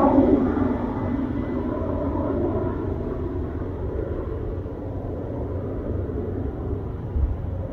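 MD 520N NOTAR police helicopter passing overhead and moving away, its rotor and turbine rumble fading over the first few seconds and then holding at a steady lower level.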